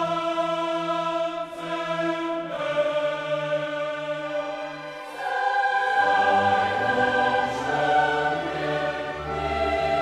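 Background choral music: voices singing slow, long-held chords that change about once a second, swelling fuller and louder about six seconds in.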